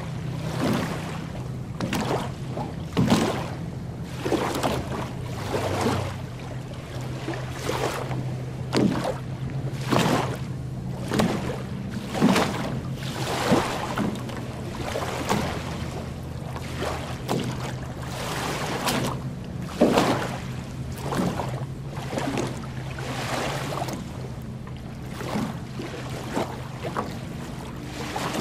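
Small lake waves lapping onto a sand beach, one wash every second or two, over a steady low engine hum.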